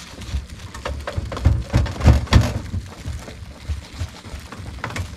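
Cloth rubbed with Pikal metal polish over a stainless steel fire-stand panel: irregular scrubbing strokes, loudest about two seconds in.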